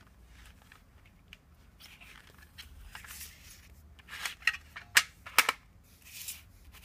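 Hands handling CD and DVD packaging: soft rustling, then a quick run of sharp plastic clicks about four to five and a half seconds in.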